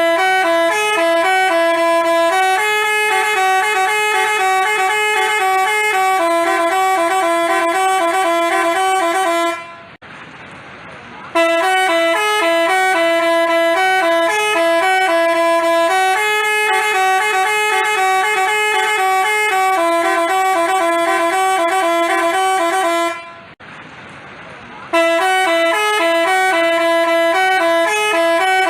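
Bus telolet horn, a multi-tone musical horn, playing a quick melody of steady, stepping notes. It breaks off twice for about a second and a half, about ten seconds and about twenty-three seconds in, leaving only a faint hiss.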